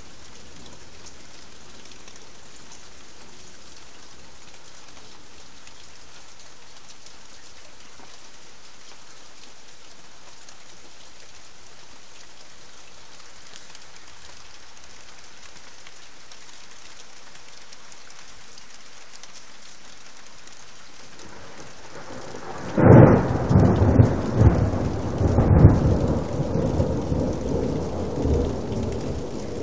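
Steady rain hiss, then about 23 seconds in a sudden loud thunderclap that rumbles on in several peaks for a few seconds and slowly dies away.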